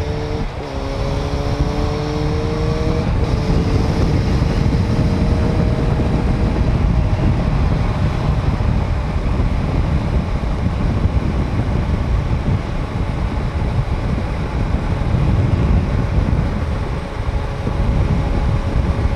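Motorcycle engine accelerating, its pitch climbing with two quick gear changes in the first three seconds, then settling to a steady cruise. Heavy wind rush on the microphone takes over for the rest.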